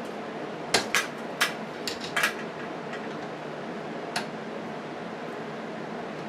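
Small metal parts clinking: a quick run of about five sharp clicks in the first couple of seconds, then one more a couple of seconds later, over a steady background hiss.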